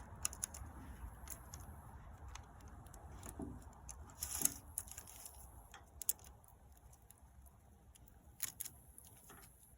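Faint, scattered metallic clicks and clinks of a chainsaw's saw chain being handled and seated link by link on the guide bar.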